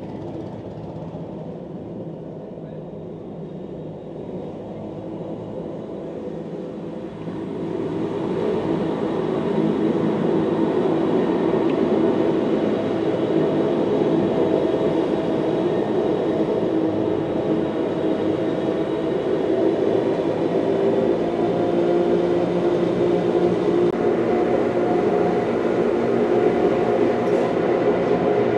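Wengernalpbahn electric rack-railway train running, a steady rumble with a whine over it. It grows louder about seven seconds in and then holds steady.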